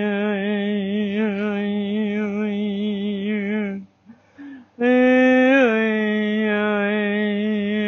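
A single voice toning one long, low, held note with a slight waver, like a chanted mantra. It breaks off for about a second just before the middle, then comes back a little higher and slides down to the same note.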